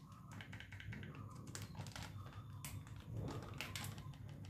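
Plastic flour packet crinkling and rustling as flour is shaken out of it into a bowl: a faint, irregular run of small ticks and rustles.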